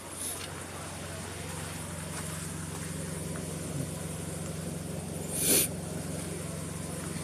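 Steady low hum of honey bee colonies at a crowded hive entrance. A brief rustle about five and a half seconds in is the loudest moment, with a smaller one right at the start.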